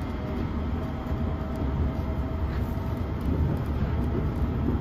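Passenger train running, heard from inside the carriage: a steady low rumble with rail and wheel noise and a few faint clicks.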